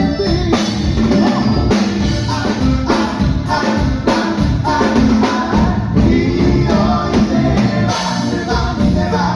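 A live Latin dance band playing loudly through a PA: singing over drum kit, hand percussion and bass, with a steady beat.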